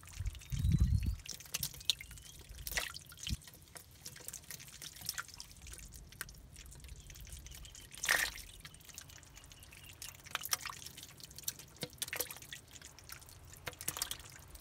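Catfish and small fish flapping in a shallow pool of muddy water: irregular small splashes and drips. A dull thump comes about half a second in, and a bigger splash about eight seconds in.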